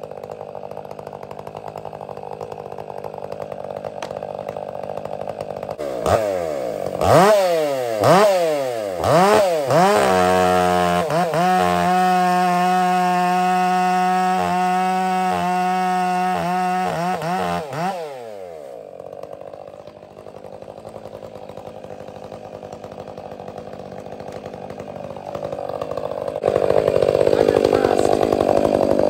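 Stihl 500i chainsaw idling, blipped several times about six seconds in, then held at full throttle for about eight seconds as it cuts into a log round, and dropping back to idle. Near the end a louder rush comes in as the idling saw is carried right up to the microphone.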